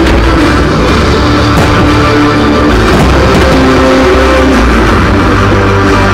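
Loud rock music with electric guitar playing over the loudspeakers of a music-synchronised fireworks show, with a few sharp firework bangs under it.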